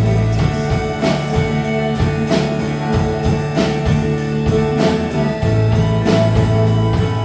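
A live rock band playing an instrumental passage with guitar, bass and drum kit. Held low bass notes run under regular drum and cymbal hits.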